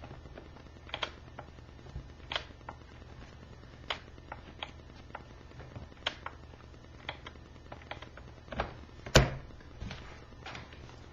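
Scattered light clicks and taps from handling a laptop and its power plug, with a louder knock about nine seconds in, over a low steady hum.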